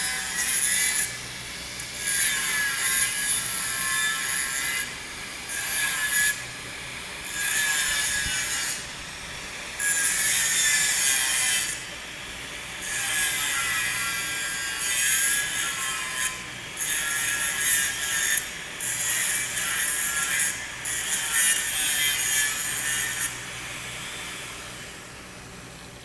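Abrasive scraping on a steel pipe weld, a harsh high hiss in repeated passes of one to two seconds with short breaks between.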